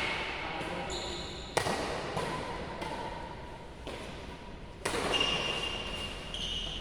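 Badminton rackets striking a shuttlecock during a rally, with a sharp hit about a second and a half in and another near five seconds, and shoes squeaking on the court floor between hits.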